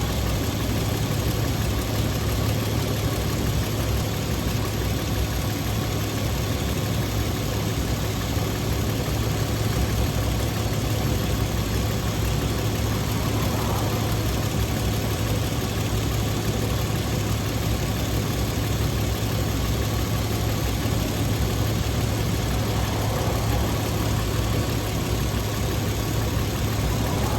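2011 Toyota Tacoma's engine idling steadily, with a constant low hum and no change in speed.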